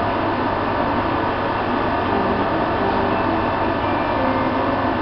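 Steady hum and hiss of a standing electric passenger train's blowers and auxiliary equipment running.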